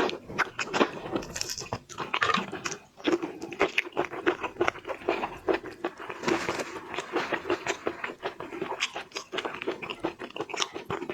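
Close-up eating of large shrimp: a dense, irregular run of biting, crunching and wet chewing clicks.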